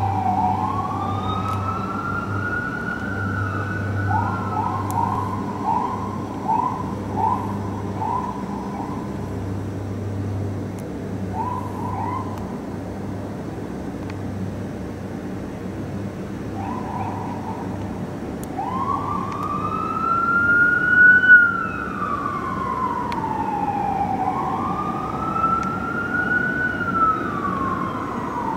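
Fire engine siren on a Spartan/Smeal pumper, sounding on an emergency run. It plays long, slow wails rising and falling in pitch, broken between about four and nine seconds in by runs of short, quick whoops. A steady low rumble sits underneath.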